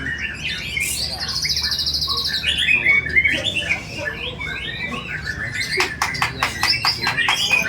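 White-rumped shama (murai batu) singing a varied, rich song of mimicked phrases, with a fast trill about a second in and a run of sharp, crackling click notes near the end.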